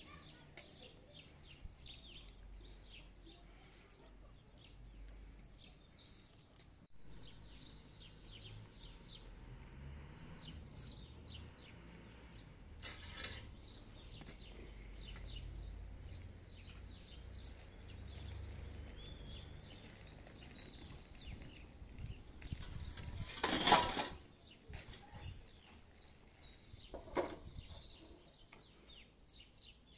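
Small birds chirping repeatedly in the background, with a faint low rumble for the first half. About two-thirds of the way through comes one short, loud, noisy burst, the loudest sound here, and a smaller one a few seconds later.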